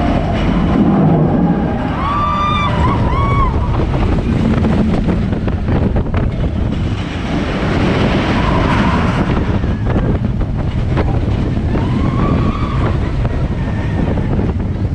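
Wind rushing over the microphone on the moving Expedition Everest roller coaster, with a few short high cries from riders.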